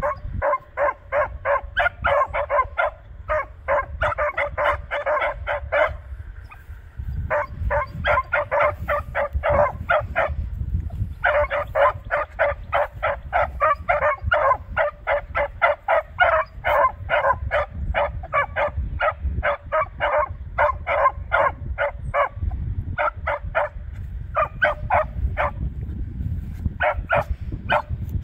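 Beagle hounds barking on a scent track: long strings of short, rapid barks, about four a second, broken by a few brief pauses. This is the open marking of a hound giving tongue as it trails.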